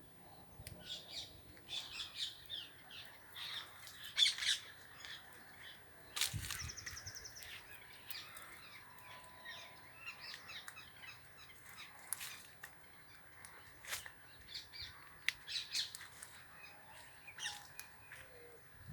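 Rose-ringed parakeets calling: short, shrill chirps and squawks scattered throughout, loudest about four to six seconds in, with a quick rattling call around six seconds in.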